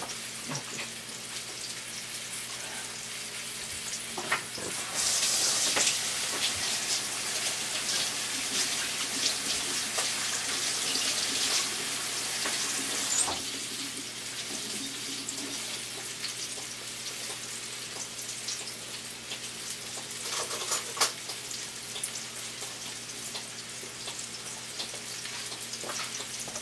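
Flour-dredged beef roast sizzling and crackling in hot oil in a skillet over medium-high heat, browning. A louder steady hiss joins about five seconds in and cuts off about eight seconds later.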